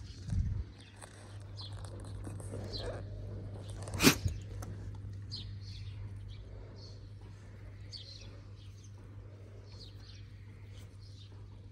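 Small birds chirping repeatedly over a steady low hum, with a low thump about half a second in and a sharp click about four seconds in.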